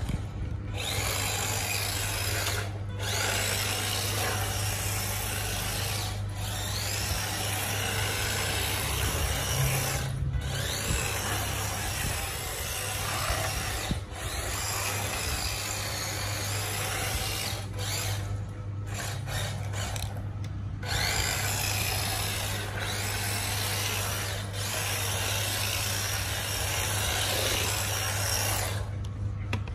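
Small electric motor and drivetrain of an LD1908 RC drift car whining in bursts as the throttle is worked, its pitch rising and falling as the car slides through turns. The sound cuts out briefly every few seconds when the throttle is released.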